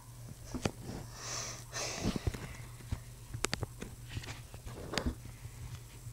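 Small plastic Lego pieces clicking and tapping against each other and the table during building, with a short breathy rustle a little over a second in.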